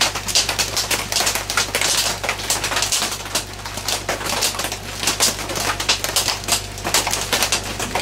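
Heavy rain on a tin roof, heard from inside a small shed as a dense, irregular popping of drops, over a steady low hum.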